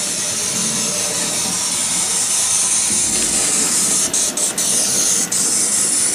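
Sound-generator wagon on an analogue HO-scale model railway playing a steam locomotive sound: a steady hiss of steam, broken by a few short gaps after about four seconds.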